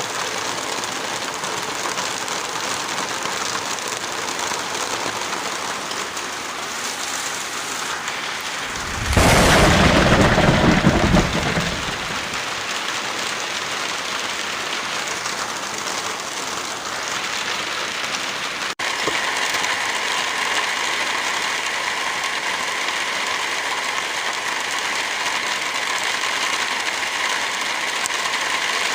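Steady rain hiss, with a loud, low clap of thunder about nine seconds in that lasts a few seconds. Near the end of the second third the sound cuts out for an instant and the rain resumes with a slightly brighter tone.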